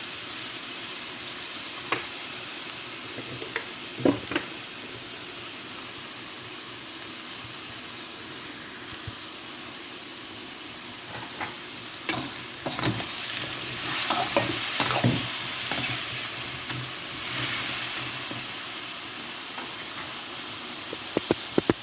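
Chicken feet sizzling in a hot pan with freshly added soy sauce, stirred with a utensil that clicks and scrapes against the pan now and then, most busily in the middle.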